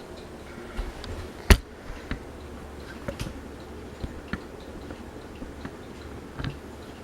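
Fasco Gulf Stream ceiling fan running with a steady low hum, with light ticks scattered throughout and one sharp, loud click about one and a half seconds in.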